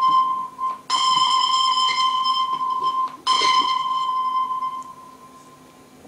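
A steady high alert-style tone, about two seconds long, repeated three times with short breaks. The third fades out.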